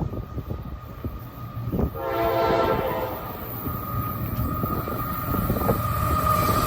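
A train rumbles past with a steady high wheel squeal, and a locomotive's multi-chime air horn sounds one short blast about two seconds in.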